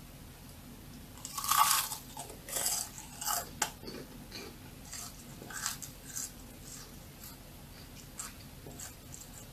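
Crisp churro bitten with a loud crunch about a second in, then chewed, close to the microphone, with irregular crunches that grow softer after about six seconds.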